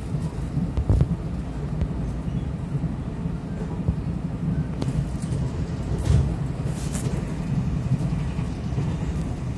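Taiwan Railways passenger train running at speed, heard from inside the carriage: a steady low rumble with a few short knocks and clicks scattered through it.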